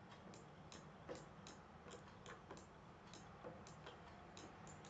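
Near silence with faint, fairly even clicks, about two to three a second.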